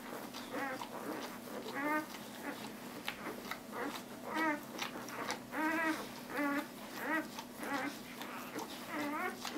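Newborn puppies, two days old, squeaking and whimpering as they nurse: a string of short, high calls that rise and fall in pitch, a little over one a second.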